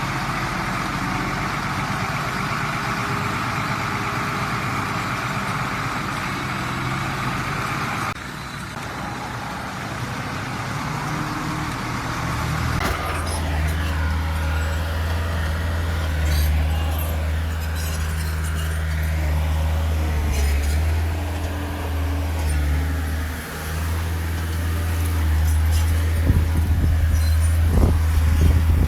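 Heavy diesel engines of earthmoving machinery running under work. The sound changes abruptly about eight seconds in; from about a third of the way through, a deep, steady engine drone dominates, with a few knocks near the end.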